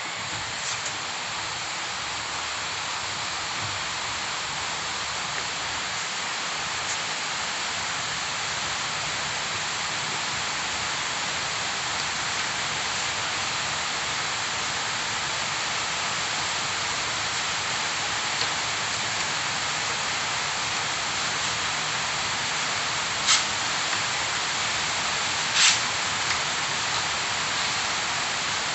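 A steady, even hiss with no rhythm, joined by three sharp clicks in the last few seconds.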